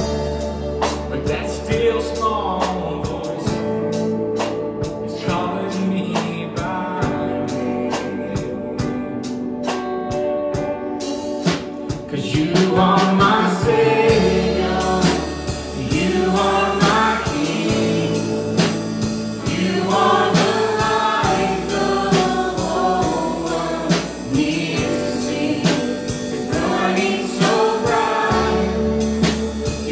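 Live contemporary worship band with keyboard and guitar over sustained low bass notes and a ticking beat. About twelve seconds in, two women start singing the melody together through microphones.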